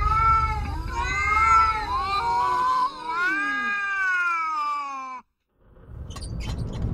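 Several cats meowing at once, long drawn-out meows that overlap and bend up and down, cutting off abruptly about five seconds in. Near the end a rising rush of noise starts.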